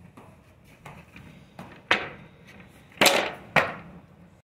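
Skateboard clattering on a concrete floor during a flip-trick attempt. The deck and wheels hit the floor in several sharp clacks, the loudest about three seconds in, with another just after it.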